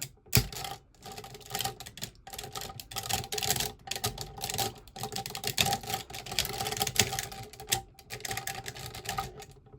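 Hard plastic parts of a Gekitoja (Jungle Pride Megazord) combining robot toy clicking and rattling in quick, uneven taps as it is handled, its arms being worked at the shoulder joints.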